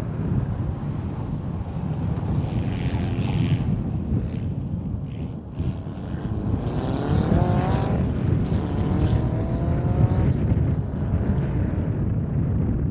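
A Mitsubishi Lancer Evolution rally car's engine accelerating hard away. Its revs climb twice in the second half, one gear after another. Heavy wind buffets the microphone throughout.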